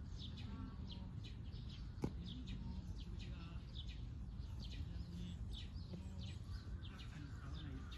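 Birds chirping over and over in short, downward-sliding calls, several a second, above a steady low outdoor rumble. A single sharp click comes about two seconds in.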